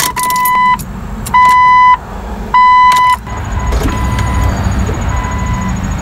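The Jeep Cherokee's dashboard warning chime beeps at one steady pitch: three loud beeps of about half a second each, then fainter ones, with a light jingle of keys at the ignition near the start. No cranking or click comes from the starter as the key is turned, because the starter is not engaging.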